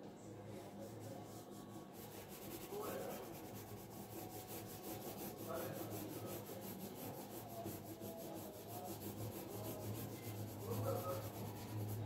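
Pencil scratching on paper in quick, regular strokes of shading, starting about two seconds in.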